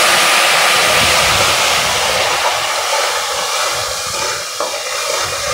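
Water hitting hot mustard oil and ground spices in a steel kadai, a loud steam hiss and sizzle that slowly dies down.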